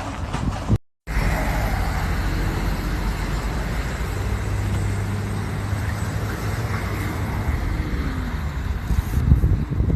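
A motor vehicle's engine running steadily under a loud rushing noise, with a brief break just under a second in.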